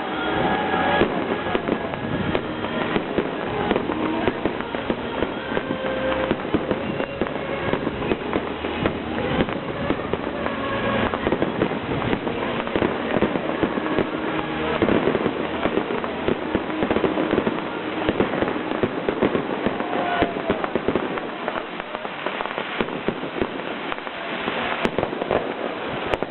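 Large fireworks display: a continuous barrage of bangs and crackling bursts, one overlapping the next, easing slightly near the end.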